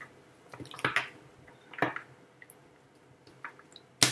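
A deck of oracle cards being shuffled by hand: a few soft swishes and taps of the cards, then a quick run of rapid clicks just before the end.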